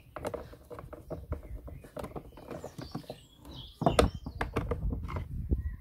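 Hand screwdriver driving a Phillips screw into the plastic handle housing of a pressure washer: a run of small irregular clicks and creaks from the screw and plastic, with a louder knock about four seconds in.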